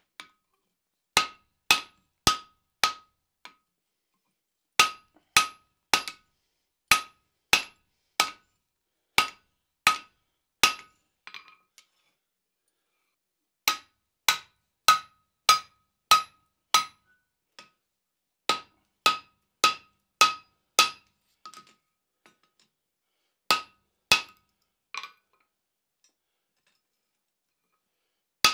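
Blacksmith's cross peen hammer striking red-hot steel on an anvil with a drift in the eye, setting out ears around the eye of a tomahawk head. The blows come at about two a second in runs of three to nine, with pauses of a second or more between runs, and each blow gives a short metallic ring.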